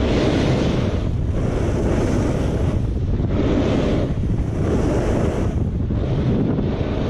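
Snowboard sliding and carving on groomed snow at speed, under heavy wind noise on the action camera's microphone. The rush of noise swells and dips every second or two as the board turns.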